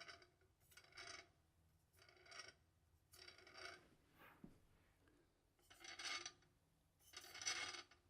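Propellers of a DJI Inspire 2 drone making a faint raspy, grating rattle in six short bursts, each under a second. This is the abnormal prop noise that appeared on all four props of a nearly new aircraft.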